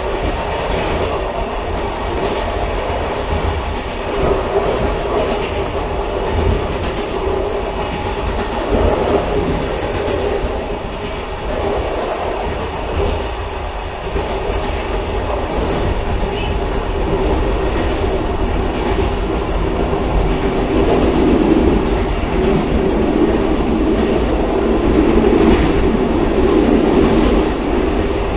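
Railcar running on the track: a steady rumble and hum with occasional faint clicks. It grows a little louder over the last third.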